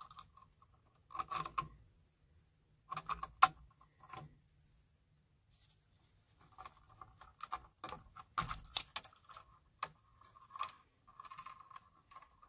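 A light switch being pulled out of a plastic electrical box by gloved hands: scattered clicks, clinks and scrapes of the switch's metal strap and screws against the box, with one sharp click about three and a half seconds in.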